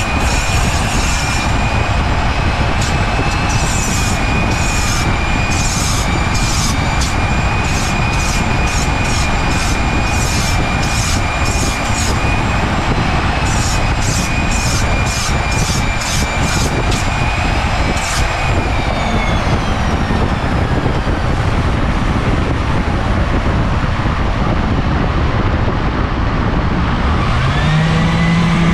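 Flexible-shaft rotary tool whining steadily while its burr grinds cork in short scratchy passes, then spinning down about two-thirds of the way through. Near the end a Ridgid random orbital sander starts up.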